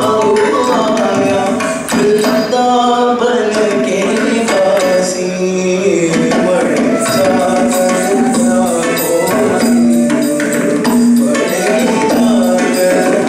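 Carnatic music for Bharatanatyam dance: a melody with gliding, bending notes and some singing, over steady hand-drum strokes and metallic jingling.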